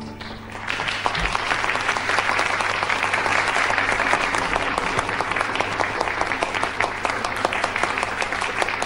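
Audience applause, building up about half a second in and then holding steady.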